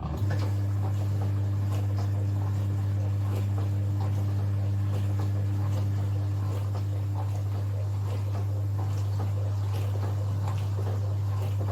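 Countertop mini dishwasher running: a loud, steady low hum from its pump motor, with a crackly spattering noise of water spraying inside. It cuts in abruptly at the start.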